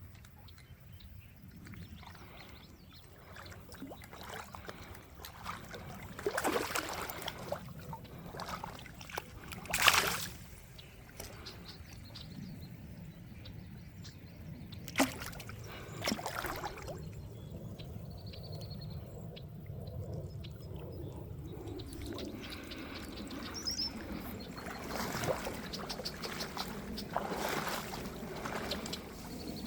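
Water sloshing and splashing in a shallow river, with a few sharper splashes, the loudest about ten seconds in.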